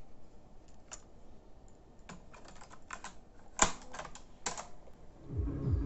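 Vintage Fujitsu Ten car cassette deck being worked by hand: a scatter of mechanical clicks from its controls and tape mechanism, with one louder clunk about three and a half seconds in. Near the end, music with a steady low beat starts playing from the deck.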